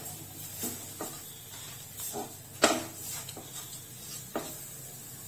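Silicone spatula stirring a sticky ginger and jaggery paste in a nonstick frying pan: irregular scrapes and knocks against the pan, the loudest about two and a half seconds in.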